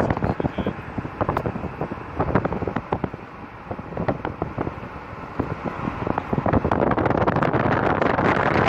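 Wind buffeting the microphone in gusts, with crackling pops. It turns louder and steadier over the last two seconds.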